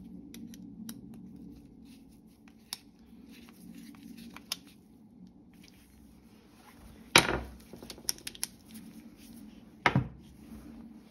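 Gardena secateurs being worked and handled: faint metal ticks, then two loud sharp clacks about seven and ten seconds in, with a few small clicks between them.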